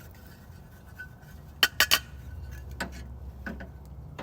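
Metal clinks and knocks as cleaned burners are set back into a 1904 Ruud instant water heater: three sharp clinks in quick succession about a second and a half in, then a couple of lighter knocks, over a steady low hum.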